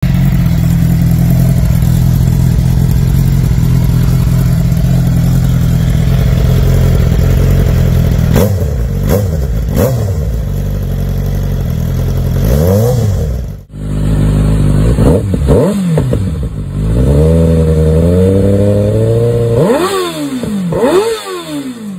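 Inline-four sport-bike engines on CS Racing aftermarket exhausts being revved while stationary: first a steady held rev for several seconds, then a series of throttle blips rising and falling. About 14 s in the sound cuts off suddenly and a second bike is heard revving in blips, holding a steady rev briefly before a few quick blips near the end.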